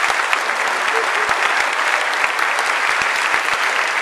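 Congregation applauding: dense, steady clapping from a large crowd.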